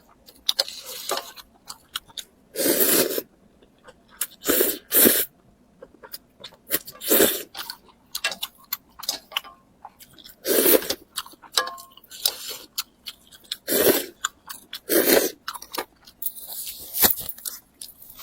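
Close-miked eating: crunchy bites and chewing with wet mouth clicks, broken by short louder crunches or slurps every second or two.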